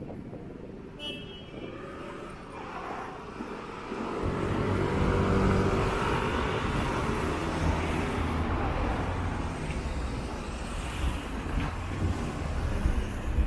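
Street traffic, with a vehicle's engine running close by from about four seconds in and louder from then on, over steady road noise. A brief high squeak about a second in.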